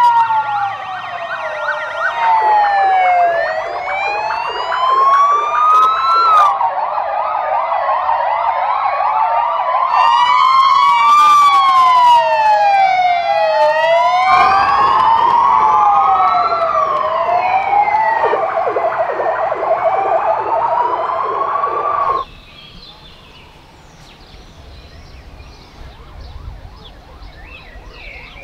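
Several emergency-vehicle sirens from a convoy of fire engines and police cars sound at once, overlapping slow wails that rise and fall every few seconds over faster pulsing tones. About three-quarters of the way through they cut off abruptly to a much quieter stretch.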